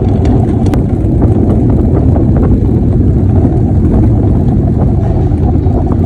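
Gravity luge cart rolling down an asphalt track: a loud, steady low rumble of its wheels on the road surface, with a few faint clicks.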